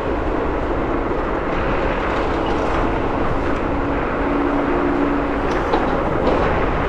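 Riding noise on a moving Varla Eagle One electric scooter: a steady rush of wind and road noise, with a faint humming tone that comes and goes.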